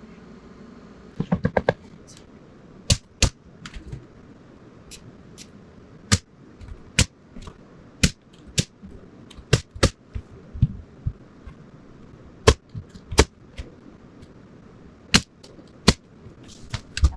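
Nails being driven into wood framing: sharp single strikes about once a second at uneven spacing, with a quick run of five strikes near the start.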